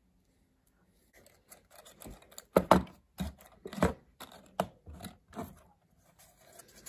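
Handling sounds of a plastic HO-scale boxcar kit: an uneven run of sharp clicks and knocks, starting about a second in, as the glued body and underframe are squeezed together and the car is moved about on a wooden desk.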